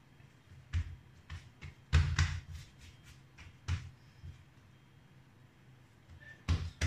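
Soft thuds and pats of hands folding a sheet of laminated croissant dough on a stone countertop. Scattered knocks as the dough layers are laid down and pressed, the loudest about two seconds in and another cluster near the end.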